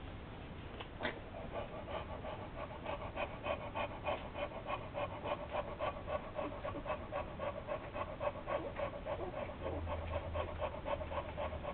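Boxer bitch panting fast and evenly while her week-old puppies nurse.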